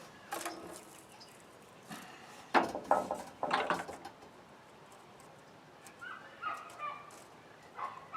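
Animal calls: a cluster of loud, short calls a few seconds in, then fainter, higher pitched calls near the end.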